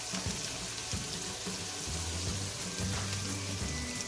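Chopped onions, ginger and garlic sizzling as they fry in hot oil, under a background music track with low steady notes.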